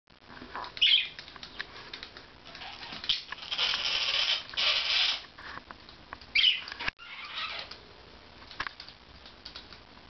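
Pet budgerigars chirping and fluttering their wings: short sharp calls about a second in and again past six seconds, and a longer stretch of noisy wing flutter between about three and a half and five seconds.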